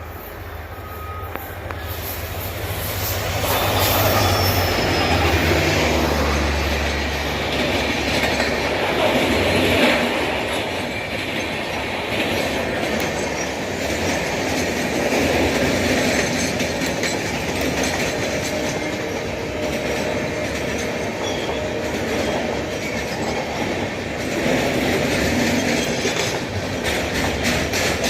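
A diesel-hauled passenger train passing. The locomotive's deep engine drone swells over the first few seconds and drops away after about ten. The coaches then roll by with a steady rumble of wheels and rail-joint clatter.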